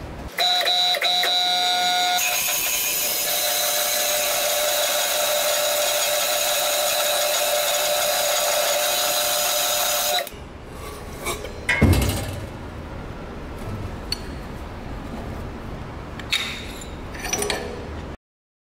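Metal-cutting circular saw starting up and then cutting through a welded steel test plate clamped in a vise: a loud steady cutting sound with high ringing tones for about eight seconds, which stops suddenly about ten seconds in. After it, a sharp knock about twelve seconds in and a few light metallic clinks.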